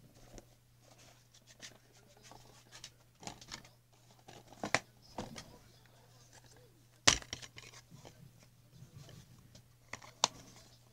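Plastic DVD cases being handled and shuffled, with soft rustling and a few sharp clacks, the loudest about seven seconds in.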